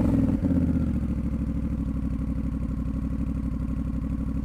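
Honda CMX1100 Rebel's 1084 cc parallel-twin engine dropping back from a rev about half a second in, then idling steadily with an even pulsing beat through its exhaust.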